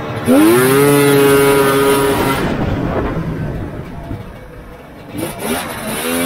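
Polaris Indy 650 three-cylinder two-stroke snowmobile engine with triple expansion-chamber pipes, hit to full throttle from idle: the note sweeps up sharply and holds high, falls away off the throttle, and rises again on a second hit near the end. It revs cleanly with no bog, the sign of a crisp, well-set carburettor tune.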